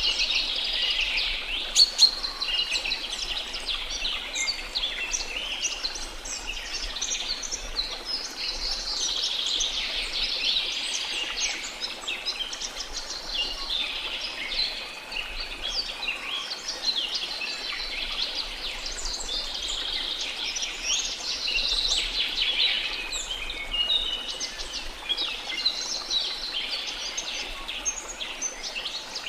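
Dense rainforest chorus of many birds chirping and trilling at once, over a faint steady hiss of flowing water. One sharp, louder call stands out about two seconds in.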